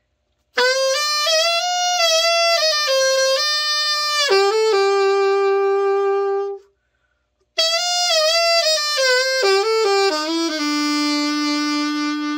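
Selmer Mark VI alto saxophone played solo in a play test after a full overhaul: two melodic phrases, each ending on a long held note, the second lower than the first, with a short pause between them.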